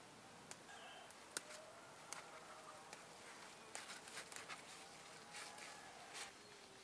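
Quiet background with a few faint scattered clicks and light taps, the sharpest about a second and a half in and a small cluster around four seconds in.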